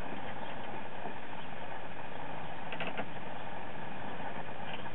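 An engine running steadily, with a few faint clicks about three seconds in from hand tools working on an electric meter base.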